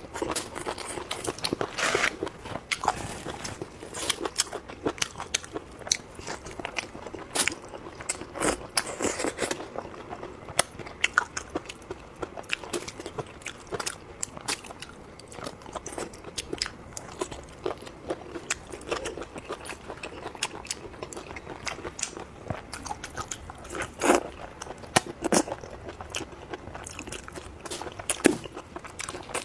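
A person eating close to the microphone: continual crunchy bites and chewing, with irregular sharp cracks and a few louder crunches near the end.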